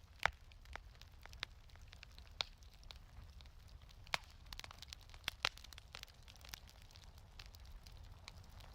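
Wood fire crackling in a fireplace: scattered sharp pops and snaps, the loudest just after the start and around the middle, over a low steady rumble.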